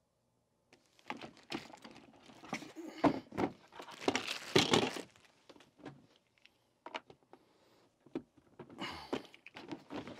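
Plastic caster wheels being handled and set down on the upturned bottom of a plastic drawer unit, then pushed into its corner sockets: a string of plastic knocks and clatters with some rustling, busiest in the first half, then a few single clicks and another short clatter near the end.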